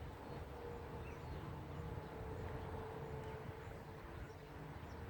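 Faint outdoor background: a steady low rumble with a faint continuous hum and no distinct events.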